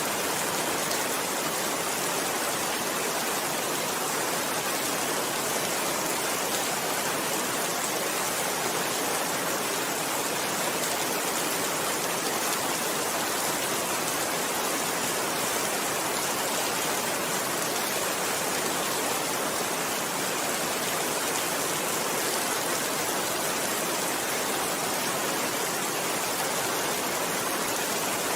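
Steady, even rain, a constant hiss of falling water without change.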